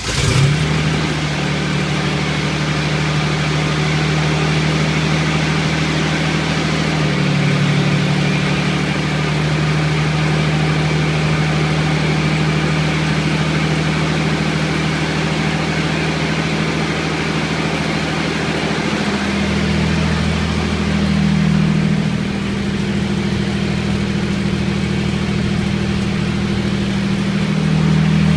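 Freshly rebuilt Toyota 3VZ-E 3.0-litre V6 in a 1988 pickup catching just as it begins and then idling steadily on its first start after the rebuild. Engine speed rises a little about a quarter of the way in, again about two-thirds of the way through, and once more near the end.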